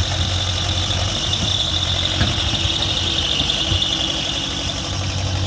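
Case 580B backhoe loader's engine running steadily as it pushes snow with its front plow blade, with a steady high-pitched whine over the engine note.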